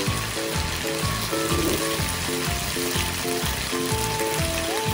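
Spice paste thinned with water sizzling and bubbling in a wok, a steady hiss, under background music with a regular beat and stepping notes.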